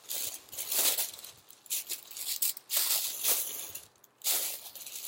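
Pink tissue paper rustling and crinkling as it is handled and stuffed into a gift bag, in several bursts.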